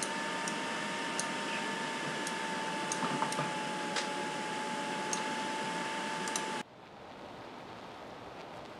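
Scattered clicks of a computer mouse, about eight in all, over a steady hiss with a thin high whine. The hiss and whine cut off suddenly about two-thirds of the way through, leaving a quieter hiss.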